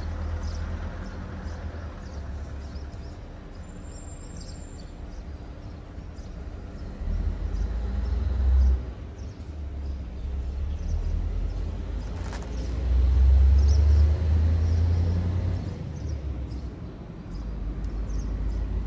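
Wind buffeting the microphone outdoors, a gusty low rumble that swells about halfway through and again in a longer gust about two-thirds of the way in, with scattered faint high chirps over it.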